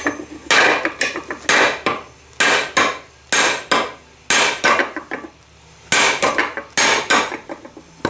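Hammer blows on the spine of a knife forged from a Heller farrier rasp, driving its edge into a mild steel bar in a cutting test. The sharp metal-on-metal strikes come roughly two a second, each ringing briefly, in groups with short pauses.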